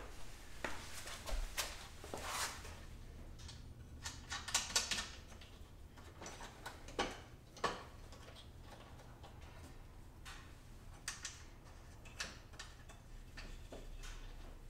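Ratchet wrench with a deep-well socket clicking in short irregular runs as strut-top nuts are turned, with scattered sharp metal knocks between the runs.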